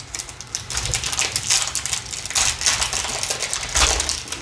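Foil wrapper of a Topps 2020 Pro Debut baseball card pack crinkling and tearing as it is ripped open by hand: a dense run of crackles with several louder rips.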